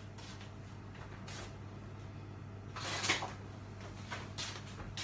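Three short scraping or rustling kitchen handling noises, the middle one the loudest, over a steady low hum.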